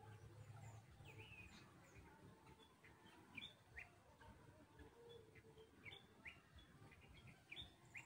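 Faint, scattered short high bird chirps, about one a second, some sliding up and some sliding down in pitch.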